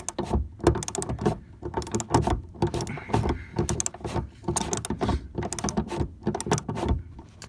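A ratchet wrench clicking and metal knocking as a pickup's rear-seat mounting bolts are worked loose: a steady run of irregular short clicks and knocks.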